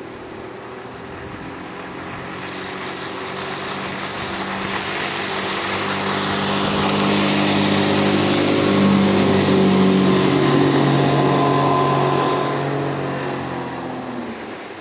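Outboard motor of a Sibir 460 motorboat running at speed as the boat passes close by, with the hiss of its hull spray. The engine note grows louder to a peak about two-thirds of the way through, drops in pitch as the boat goes by, and fades as it moves away.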